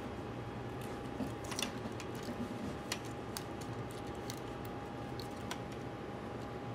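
Scattered small clicks and taps as the cooling fans are handled and seated into an open laptop's chassis, over a steady faint hum.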